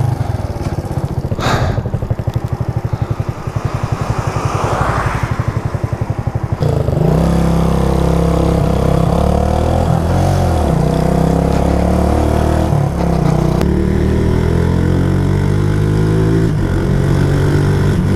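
Suzuki GN125's single-cylinder four-stroke engine, heard from on the bike: it runs low and even for the first six seconds or so, then the revs rise and fall as the motorcycle pulls away and accelerates along the road.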